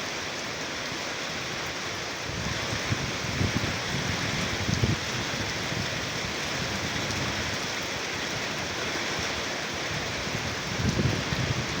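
Steady rain falling, an even hiss with no break. A few low rumbles of wind buffeting the microphone come between about two and five seconds in and again near the end.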